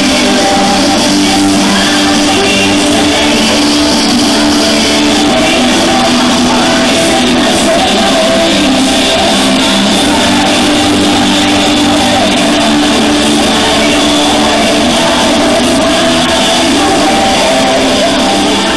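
Loud pop-rock song with a male singer, playing steadily.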